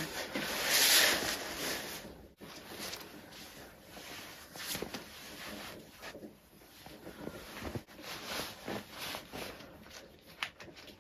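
Clothing rustling and rubbing as someone undresses, with small knocks and handling noises, and a louder rustle about a second in.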